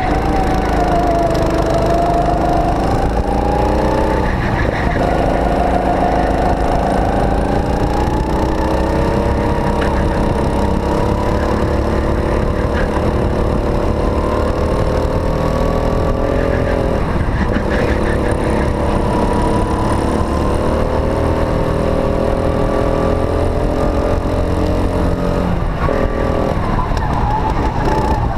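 Go-kart engine heard onboard while lapping: its note climbs steadily under throttle and drops back briefly into corners, about four seconds in, around seventeen seconds and again near the end. A steady low rumble runs underneath.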